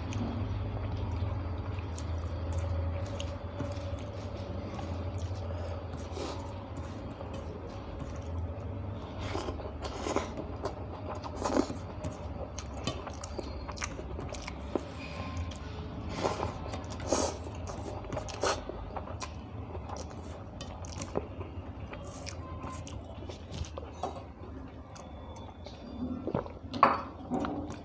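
A person eating: chewing and biting, with short irregular clicks and crunches, over a steady low hum.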